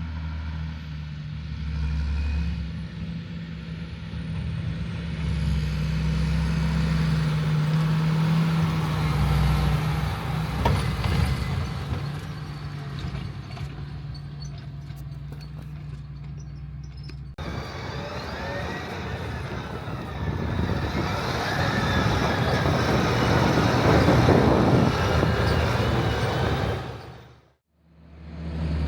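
John Deere 8270R tractor's diesel engine running steadily while pulling a liquid manure tanker. A little over halfway through the sound cuts abruptly to another shot, where a louder broad rushing noise joins the engine.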